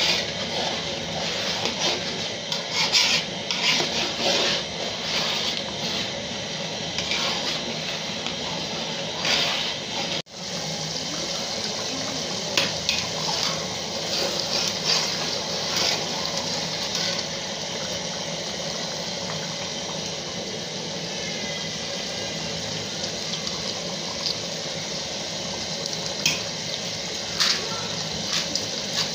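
A pot of tomato-based jollof stock boiling hard, with a steady bubbling hiss. A spoon stirring it scrapes and knocks against the pot now and then. The sound drops out briefly about ten seconds in.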